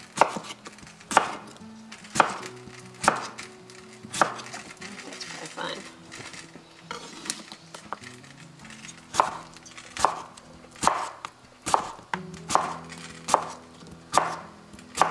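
Chef's knife slicing a cucumber on a wooden cutting board: a sharp knock of the blade against the board about once a second, with a gap of a few seconds in the middle.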